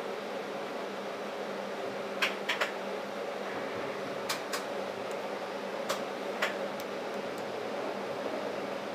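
Steady hum inside a moving TTC streetcar, its ventilation and drive running with a low steady drone. Several short sharp clicks and ticks come in the middle, a few in quick pairs.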